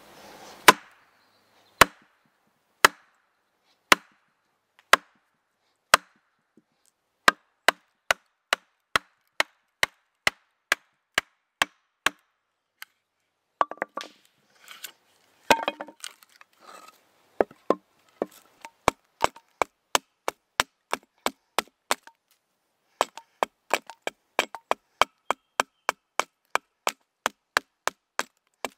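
A hatchet chopping and splitting a short log, one sharp strike about every second at first, then coming faster. The wood cracks and splinters as it splits apart midway through, then a quick run of lighter chops follows as the split board is hewn.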